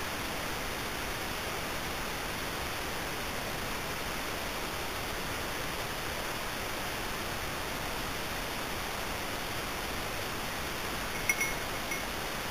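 Steady, even hiss with no distinct events, typical of a small camera's microphone noise, with a short cluster of sharp chirping clicks about eleven seconds in.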